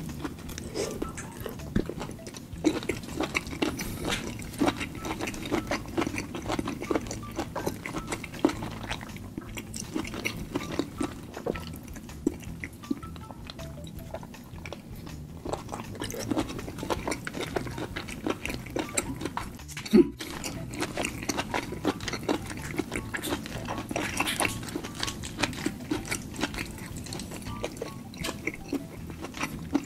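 Close-miked eating sounds of shellfish: wet chewing, sucking and lip-smacking as meat is drawn from sauced lobster and crab shell pieces, with many small clicks and one sharp loud click about twenty seconds in.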